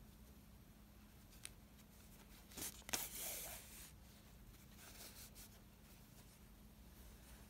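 Faint handling of cotton fabric and batting during hand sewing, with soft clicks and a short, louder rasp of cloth about three seconds in.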